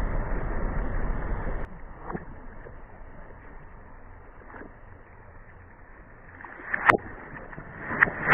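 A steady rumble that cuts off abruptly about two seconds in. After a quieter stretch there is a single sharp pop about seven seconds in, then a couple of smaller clicks near the end: objects bursting or cracking under a car's tyres.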